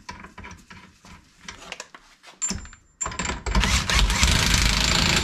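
Light clicks and taps of hand tools, then a power tool runs in one loud, steady burst of about two seconds and stops abruptly. It is likely running down the bolts of a classic Mini's front swivel hub over its shim pack.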